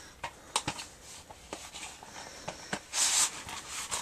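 Cardboard slipcover being slid off a plastic DVD case: scattered light clicks and taps of the case being handled, and a short rubbing swish about three seconds in.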